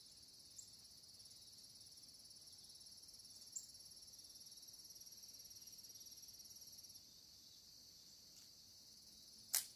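Faint, steady high-pitched chirring of field insects. Near the end comes one short, sharp crack.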